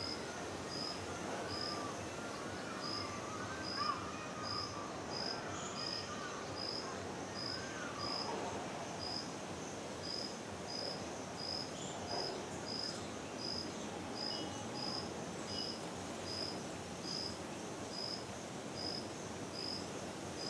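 A short, high chirp repeating steadily about one and a half times a second, cricket-like, over steady outdoor background noise. A few warbling bird calls come in the first eight seconds.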